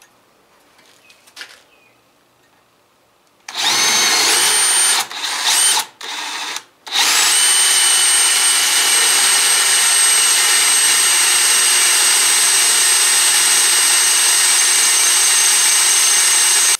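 Cordless drill with a roughly quarter-inch bit boring into a broken steel exhaust stud in a small-block Chevy's cast-iron exhaust manifold, cutting easily. After about three quiet seconds the motor whines up in a few short starts and stops, then runs steadily for about ten seconds before cutting off.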